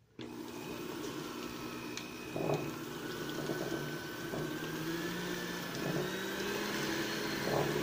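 Electric hand mixer running steadily, its beaters whirring and sloshing through thin, runny chocolate cake batter that has just been thinned with boiling water.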